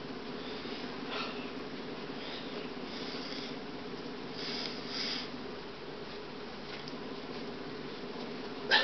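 A steady low hum of room tone, with a few faint hissing rustles and one short sharp knock near the end.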